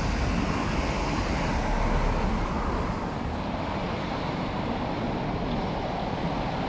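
Steady city street noise with road traffic, a low rumble, easing a little about three seconds in.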